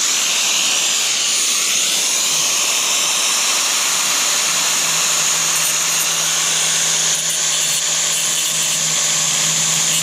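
Angle grinder spinning up with a rising whine and then running steadily at full speed, a high, even whirring noise with a low hum beneath it.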